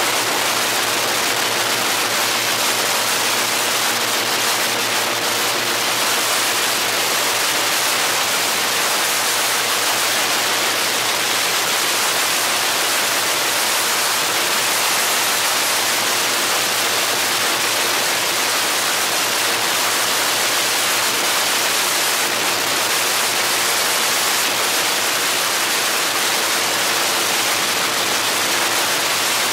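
Airboat running at speed across open water: a steady, loud rushing noise from the engine and the large air propeller, with a faint even engine hum underneath.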